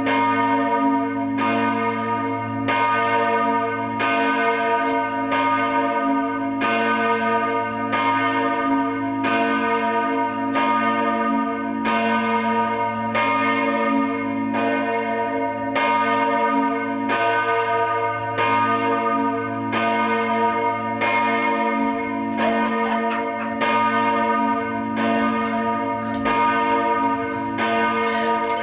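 Church bell rung steadily, struck roughly once a second, each stroke ringing on into the next so the tones overlap over a continuous low hum.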